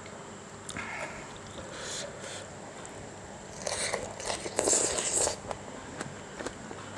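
Close-up eating sounds: chewing and mouth noises of someone eating spicy instant-noodle salad (yum mama), in irregular bursts with small clicks, loudest about four to five seconds in.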